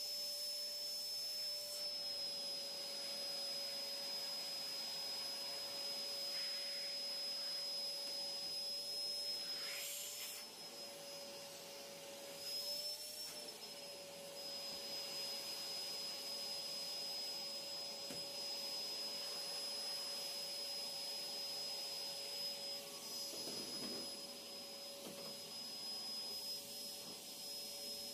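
Vacuum cleaner running steadily, its motor whine holding one pitch and wavering briefly a few times as the load changes.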